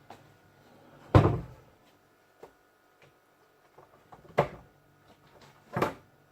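Kitchen cupboard doors opening and closing: three thuds, the first and loudest about a second in, then two more near the end, with a few light clicks between them.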